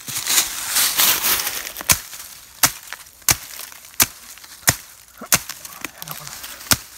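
Dry leaf litter rustling and crunching, then a blade chopping into a small branch or root. The chops are sharp and come about every two-thirds of a second, starting about two seconds in.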